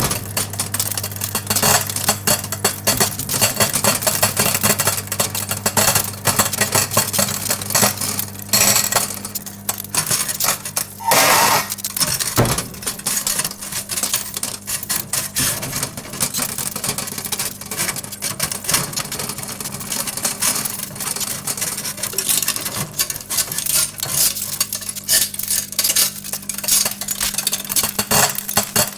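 Several metal forks arcing inside a running microwave oven: dense, irregular crackling and snapping over the oven's steady low hum, with a louder flare of sparking about eleven seconds in.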